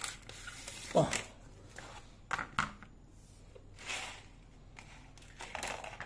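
Clear plastic blister packaging crackling and clicking as hand crimping pliers are worked out of it: scattered clicks and short rustles, with a sharp snap about a second in.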